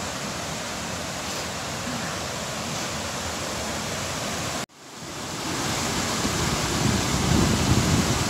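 Mountain river rushing and cascading over rocks beneath a wooden footbridge, a steady rush of white water. It cuts out for an instant a little past halfway and comes back louder and fuller, heard from close to the water.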